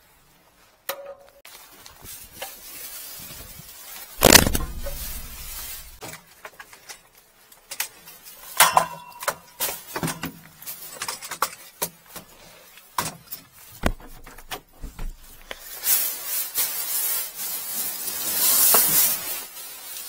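Handling noise: scattered knocks, clicks and rustling as gloved hands move plastic bags and objects around. There is one loud knock about four seconds in and a longer rustle near the end.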